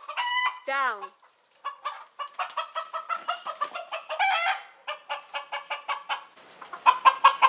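Rooster clucking in a fast, even run of short calls, with louder drawn-out squawks in the first second and again near the end.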